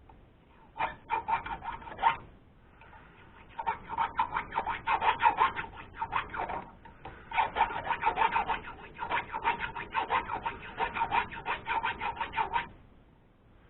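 Rapid rasping strokes of a hand tool worked back and forth, about four or five a second, like filing or scraping. They come in three bouts: a short one about a second in, then two longer runs that stop near the end.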